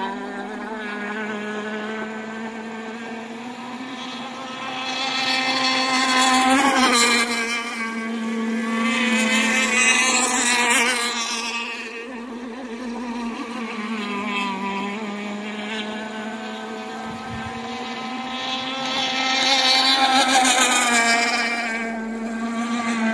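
Radio-controlled racing boats running flat out in a race, their engines giving a steady high-pitched drone. The sound swells louder three times, about five, ten and twenty seconds in, as boats pass close.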